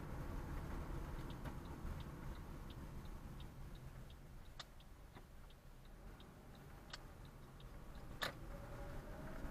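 Car turn-signal indicator clicking, about three clicks a second, over low road and engine rumble inside the car. It starts about a second in, and one louder click comes near the end.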